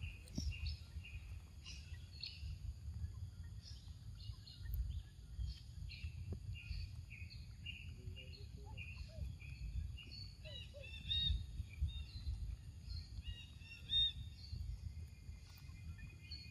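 Birds chirping, with short high calls repeating throughout, over a steady low background rumble.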